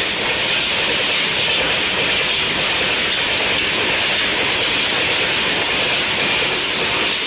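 Train rolling past at speed: a loud, steady rush of wheels and wagons on the rails.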